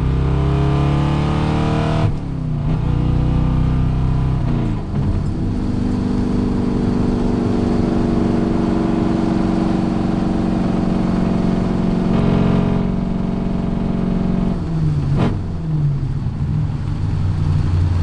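1973 Corvette V8 with 3-inch dual straight pipes, heard from inside the cabin. It pulls hard with the revs climbing, and they drop sharply twice in the first five seconds as it shifts up. It then cruises at steady revs, and the revs fall again near the end and settle lower.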